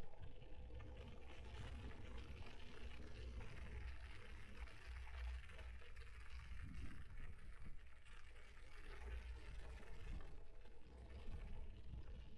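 Electric mountain bike being ridden: wind rumbling on the frame-mounted camera's microphone over a faint, steady hiss of tyres and drivetrain.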